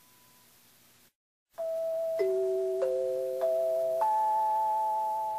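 Bus on-board announcement chime: after a second of faint hum and a brief dropout, five bell-like notes are struck about half a second apart, each ringing on so they build into a chord that slowly fades. It is the attention chime that introduces a recorded stop announcement.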